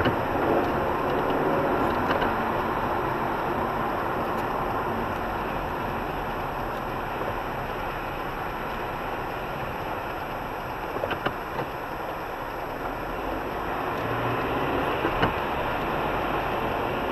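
Steady car engine and tyre noise heard inside the cabin of a car crawling in slow motorway traffic. A few short clicks come about eleven seconds in.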